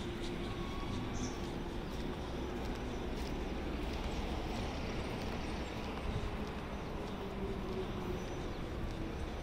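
Steady background hum and hiss with a few faint distant tones, and no distinct event standing out.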